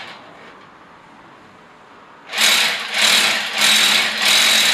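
Electric hammer drill boring into a wall. It is quieter for the first two seconds, then runs loudly in surges about twice a second.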